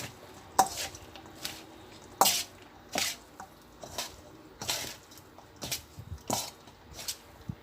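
A spoon mixing a tuna, vermicelli and pepper filling in a bowl: irregular sharp clinks and taps against the bowl, roughly one every half second to second.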